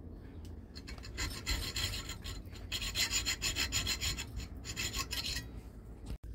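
Junior hacksaw cutting through a small metal tube clamped in a bench vise, with rapid back-and-forth strokes. The sawing starts about a second in and stops about five seconds in, as the end is cut off.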